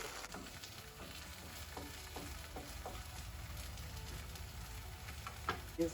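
Vegan omelette of Just Egg over sautéed vegetables sizzling steadily in oil in a non-stick frying pan, with a light click near the end.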